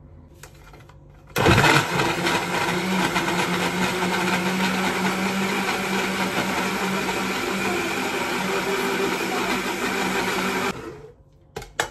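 Kenwood countertop blender switched on about a second in, running steadily as it blends milk, ice cream and Nutella into a shake, then switched off near the end.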